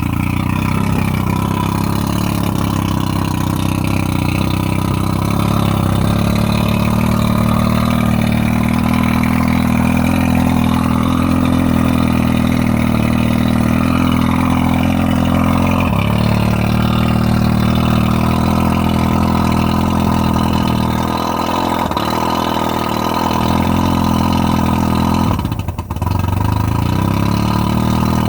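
1995 Mercury 115 hp 2+2 two-stroke outboard idling roughly and misfiring. Its note steps down about halfway through and briefly sags near the end.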